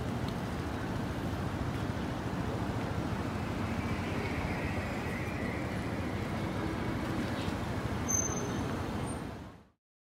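City street traffic at night: a steady rumble of motor vehicle engines and tyres, with a brief high squeak about eight seconds in. It cuts off abruptly near the end.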